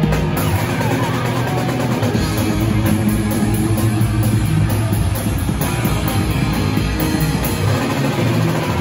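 Live rock band playing loud, with electric guitar and a drum kit.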